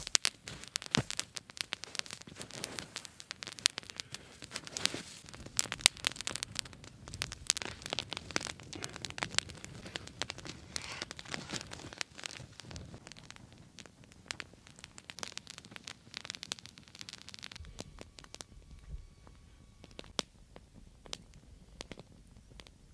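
Small wood campfire of twigs and sticks crackling and popping, with many sharp snaps that thin out to sparse pops near the end.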